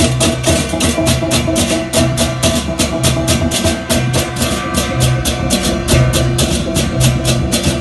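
Balinese baleganjur gamelan playing: clashing hand cymbals (cengceng kopyak) in a rapid, steady pulse of about five or six crashes a second, over held ringing gong tones and repeated deep gong and drum strokes.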